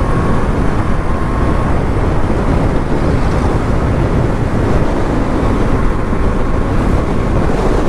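KTM 390 Duke's single-cylinder engine running while riding, under steady wind buffeting on the microphone.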